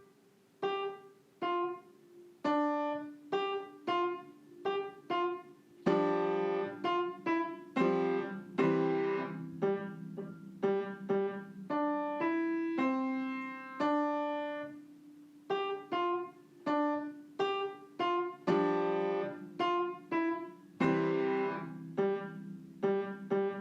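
Piano playing a short piece: separate struck notes that fade away, thin single-note passages alternating with fuller chords.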